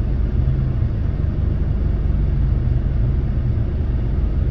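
Steady low rumble of a vehicle travelling.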